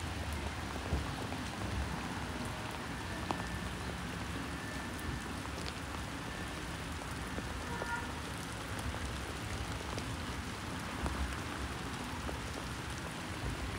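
Steady rain falling, an even patter of drops on surfaces with a few faint ticks.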